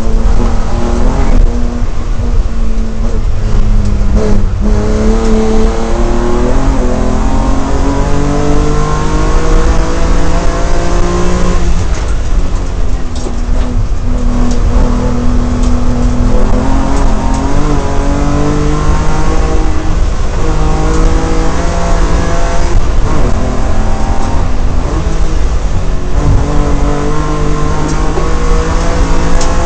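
BMW M3 race car's engine at full throttle through the gears, heard onboard: the pitch climbs as it accelerates and drops sharply at each gear change, with lifts and braking between corners.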